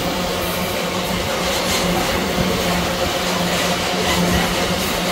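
Loaded iron ore freight train rolling past: a steady rumble of wheels on rail with a constant low hum underneath.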